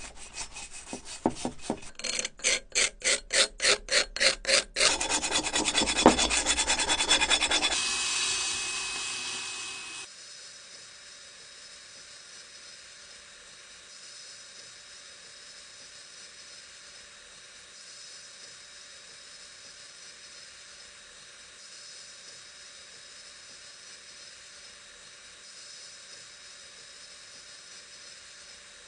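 Hand filing or sanding, with rhythmic rubbing strokes at about four a second that then become faster and denser, as parts of an old rusty coffee grinder are worked by hand. The strokes stop about ten seconds in, leaving only a faint steady hiss.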